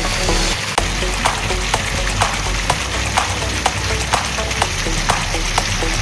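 Stream water rushing and splashing over a small concrete weir, a dense, steady hiss. Background music runs underneath, with a light regular beat about twice a second.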